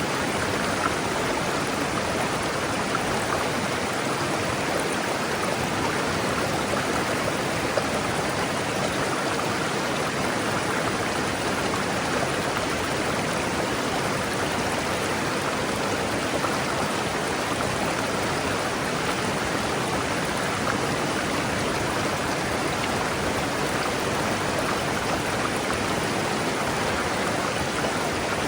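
River water rushing steadily over rocks, a continuous even rush.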